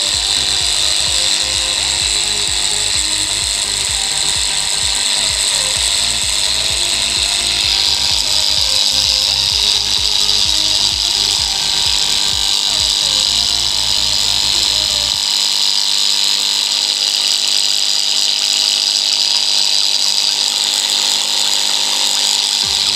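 Opened household gas compressor, an electromagnetic diaphragm pump, running at speed on direct power: its armature vibrates between the two coils to drive the diaphragm, giving a loud, steady mechanical buzz and rattle. The deep part of the buzz drops away about two-thirds of the way in.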